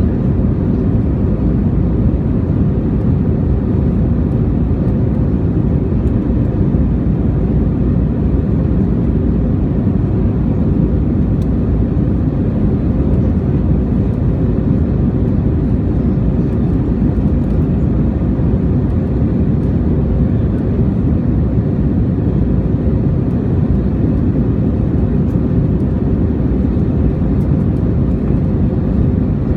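Airbus A321 passenger cabin in flight: a steady, even low rumble of jet engines and airflow.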